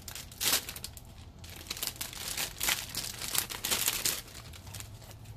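Thin plastic parts bag crinkling and rustling in bursts as a plastic model-kit runner is pulled out of it, busiest from about a second and a half in until near the end.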